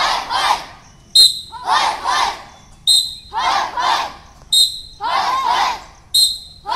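A group of children shouting together in unison, each shout answering a short, high whistle blast, four blasts about every second and a half. It is the call-and-response rhythm of a martial-arts drill.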